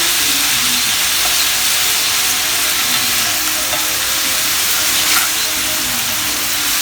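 Cubed steak browning in bacon fat in a frying pan, sizzling steadily, with a brief click about five seconds in.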